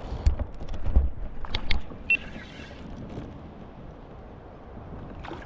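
Several dull knocks and clicks with low wind rumble on the microphone in the first two seconds, then a steady low hiss of wind and water; a brief high chirp sounds about two seconds in.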